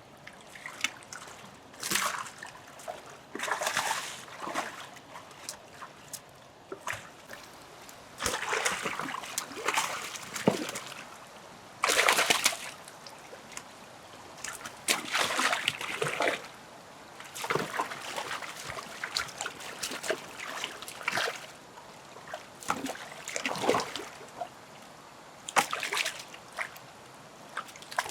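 Water splashing and sloshing in irregular bursts about one to two seconds apart, with trickling between them.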